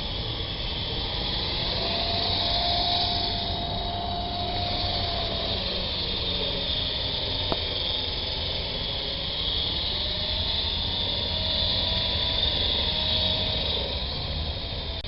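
Big QS 8005 coaxial electric RC helicopter in flight: its motors and rotors whirring, the motor whine slowly rising and falling as the throttle changes, over a steady hiss. A single short click about halfway through.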